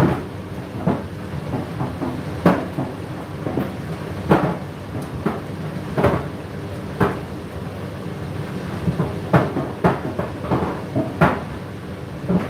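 Laundry machine drum turning with clothes tumbling inside: irregular dull thuds about every one to two seconds over a steady low hum.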